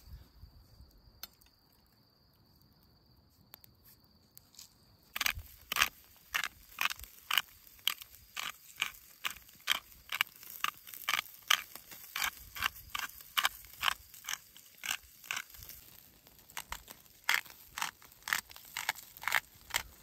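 After about five seconds of near silence, charcoal embers under a fish in a wire grilling basket start crackling and popping in short sharp snaps, roughly two a second.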